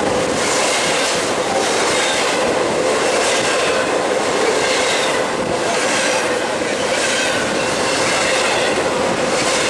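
Double-stack container cars of a freight train rolling past, their steel wheels clattering over the rail joints in a repeating rhythm over a steady high wheel squeal.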